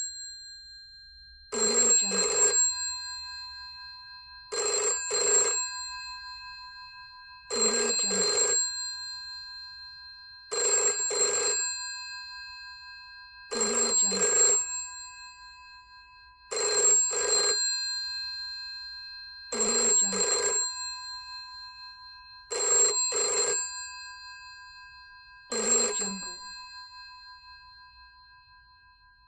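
A 1960s rotary-dial telephone's bell ringing in double rings, nine in all, about every three seconds. Each ring-ring leaves a bright metallic tone that fades slowly before the next.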